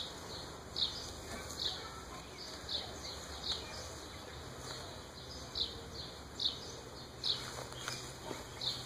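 A bird calling outdoors: short, high chirps repeating about once every three-quarters of a second. A faint low hum comes in about halfway through.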